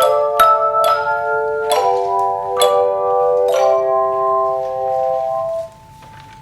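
Tone chime ensemble playing a Christmas carol: soft, bell-like chords struck one after another, each note ringing on. Near the end the notes stop together, leaving one faint tone ringing briefly.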